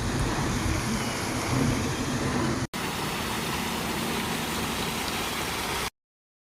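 Steady rushing outdoor background noise with no distinct source, broken by a brief dropout about two and a half seconds in and cutting to dead silence near the end.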